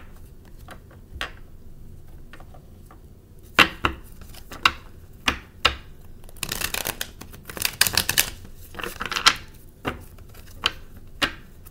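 A deck of tarot cards being shuffled by hand: scattered sharp snaps and taps of the cards, with two short runs of rapid rustling shuffling a little past halfway.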